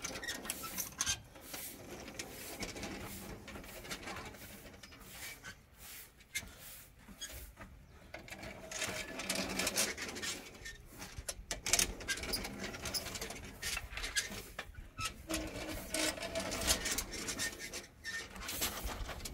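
Stone roller hauled by rope over a gravelly earth floor, crunching and grinding as it packs the floor down, in stretches with short pauses between them.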